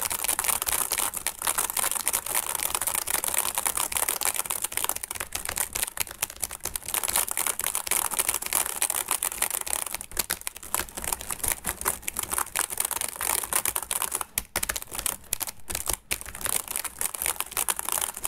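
Computer keyboard hammered with fast, frantic typing: a loud, dense clatter of keystrokes that sounds like rain, with a few brief breaks near the end.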